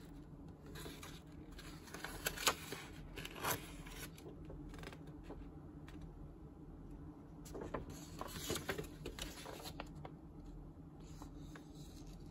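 Paper rustling and crackling as the pages of a model kit's instruction booklet and its painting guide sheet are turned and handled, in two bouts, one about two seconds in and one near eight seconds, over a steady low hum.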